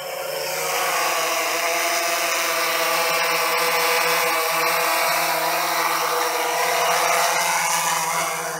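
DJI quadcopter's motors and propellers humming steadily with a buzzing, pitched whine, growing louder over the first second as the drone comes in close and hovers low to land.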